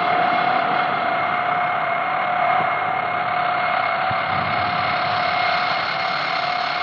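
Experimental noise music from a cassette: a dense, steady wash of noise with a held mid-pitched tone and a fainter, higher tone running through it, unchanging throughout.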